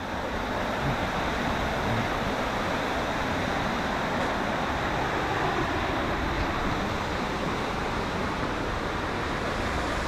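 Steady, even rush of running water.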